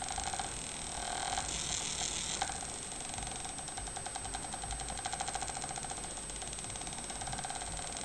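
Small unipolar stepper motor stepping rapidly under microcontroller control, a fast, even ticking buzz, with a single sharper click about two and a half seconds in.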